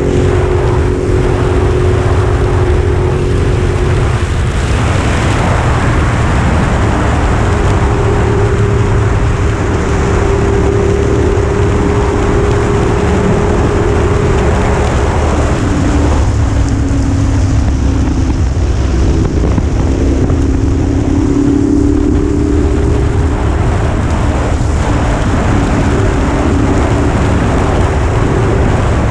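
Motorcycle engine running at road speed under a steady rush of wind. The engine note holds steady for long stretches, drops lower a little past halfway, then climbs back up.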